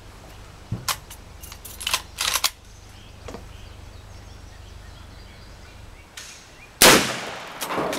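A single loud .357 Magnum gunshot about seven seconds in, with a short echoing tail. A few light clicks and knocks come before it.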